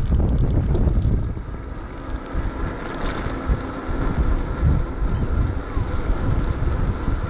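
Wind buffeting the microphone of a GoPro mounted on a moving electric bike: a dense, gusty low rumble that eases a little in the middle. A faint steady whine sits underneath it.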